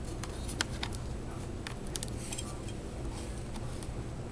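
Faint scattered clicks and taps of small plastic laptop parts and cables being handled, over a steady low hum.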